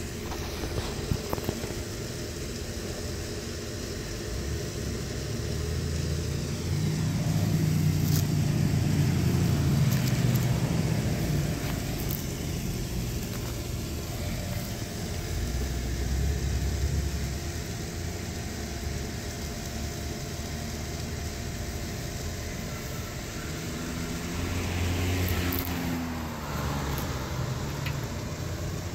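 Low engine rumble swelling and fading about three times over a steady faint hum.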